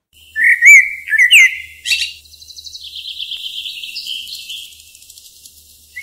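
Small bird chirping: a few loud, whistled chirps in the first second and a half, then a fast, buzzy twittering that fades away, with more chirps right at the end.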